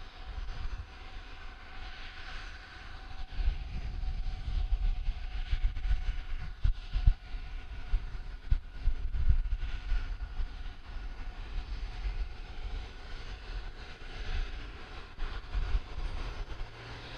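Jet aircraft engines running at a distance: a low, uneven rumble with a faint steady whine over it.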